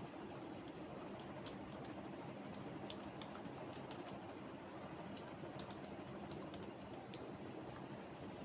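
Typing on a computer keyboard: a steady, irregular patter of keystrokes over a constant low background hum.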